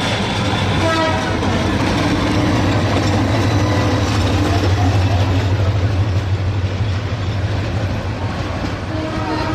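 Bangladesh Railway diesel train running past with a loud low engine rumble that swells to its loudest about halfway through, then eases. Its horn sounds again near the end.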